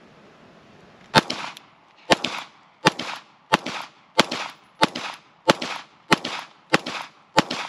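FN 509 9mm pistol fired ten times in a steady string, about one and a half shots a second, each shot trailing off with a short echo. The string starts about a second in.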